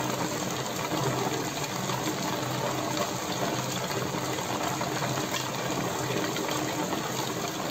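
Steady bubbling of air from an air stone rising through the water of a plexiglass bubble-wall fountain, with the steady buzz of the small air pump that drives it.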